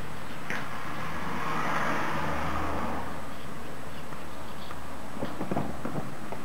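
A road vehicle passing, its noise swelling about a second in and fading by about three seconds. A few light clicks come near the end.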